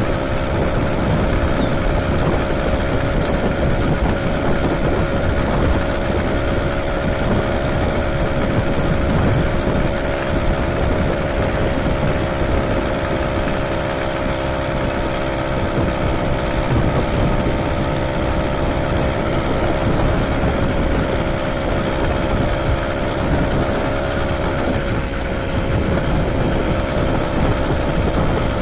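Small motorized bicycle engine running steadily at cruising speed, its hum holding an even pitch, with wind noise on the microphone.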